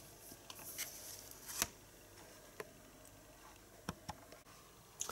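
Faint clicks and taps from handling a disc and a cardboard digipak, with the sharpest click about one and a half seconds in and a few scattered ticks after it.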